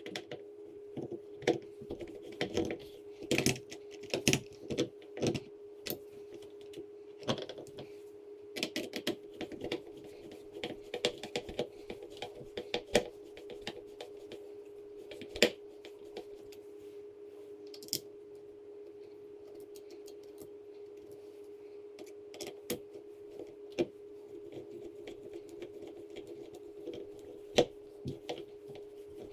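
Irregular small clicks and taps of metal screws and a Phillips screwdriver being handled and driven by hand into a deadbolt's mounting plate. They come thick at first and grow sparse after about halfway, over a steady low hum.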